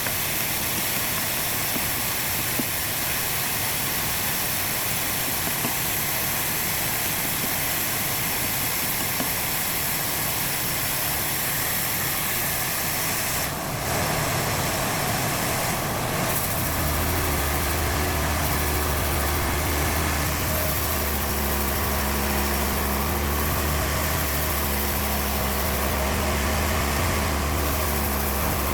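Sawmill machinery running: a steady, hiss-heavy noise for about the first half, then a sudden change to a steady low, engine-like hum.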